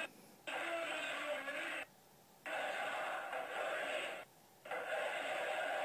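Large crowd of demonstrators chanting in unison, phrase after phrase, with three short breaks between the chanted lines.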